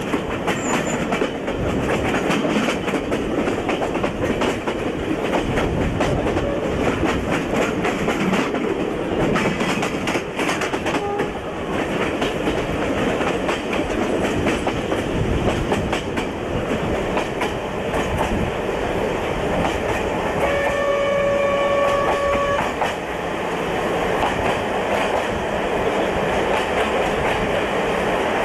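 Passenger train running along the line, heard at an open carriage window: a steady rumble with a constant clatter of wheels over rail joints. About twenty seconds in, a train horn sounds one steady note for about two seconds.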